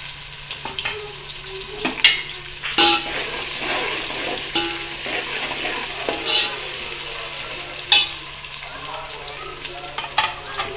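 Sliced onions and green chillies sizzling in hot oil in a stainless steel pot, stirred with a steel ladle that scrapes and knocks against the pot several times.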